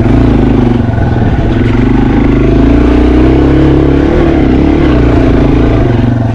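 Yamaha TW200's air-cooled single-cylinder four-stroke engine pulling hard at high revs up a steep dirt trail, its pitch wavering with the throttle. It jumps from a low putter to full revs right at the start.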